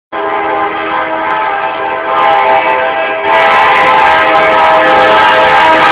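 Union Pacific freight locomotive's multi-chime air horn blowing one long, steady blast for a road grade crossing, getting louder about three seconds in as the locomotive draws near.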